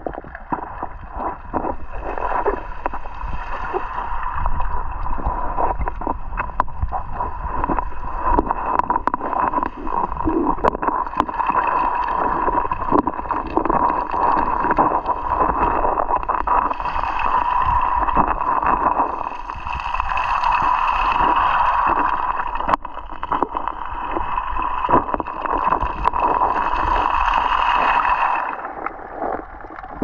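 Seawater sloshing and gurgling against a camera held just below the surface, heard muffled and underwater, with many small clicks and knocks and a steady hiss that swells and eases.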